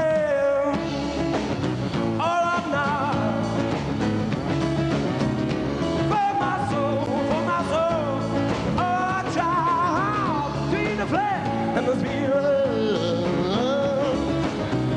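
Rock song: a male voice singing wavering, drawn-out notes over acoustic guitar and electric bass.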